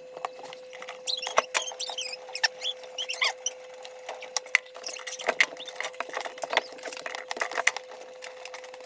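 Scattered small squeaks, clicks and scrapes from hands working at the plastic drain fittings under a kitchen sink, as the drain plumbing is being disconnected. A steady hum runs underneath.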